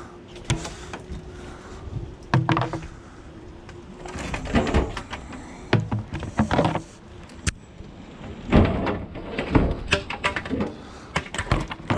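Discarded PVC pieces being handled and moved: a string of irregular knocks, clatters and scrapes of hard plastic, with a faint steady hum in the first few seconds.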